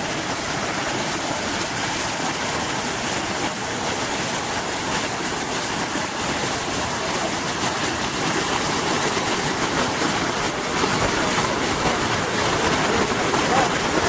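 Waterfall rushing steadily, a dense even roar of falling water that grows a little louder in the last few seconds.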